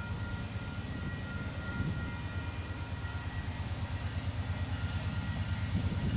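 Diesel freight locomotive engines working as the train slowly accelerates toward the listener: a low, pulsing engine drone with a thin steady whine above it, growing slightly louder near the end.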